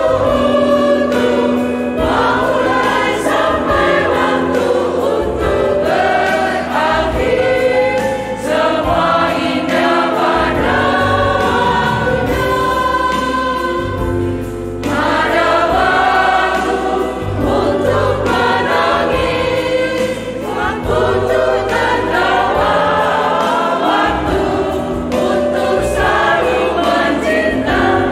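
Women's choir singing a hymn in Indonesian in several parts, with sustained low accompanying notes beneath the voices.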